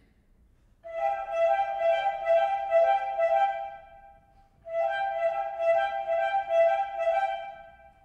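Flutes playing two phrases of a fast two-note trill, each about three seconds long, the first starting about a second in and the second after a short break about five seconds in.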